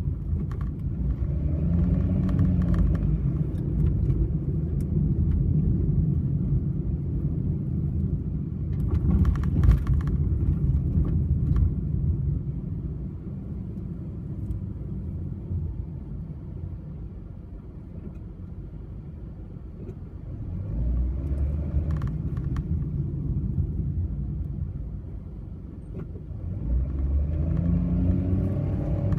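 Honda N-BOX kei car driving on a steep slope: a steady low engine and road rumble, with the engine note rising several times as it pulls. A cluster of short knocks comes about nine to ten seconds in.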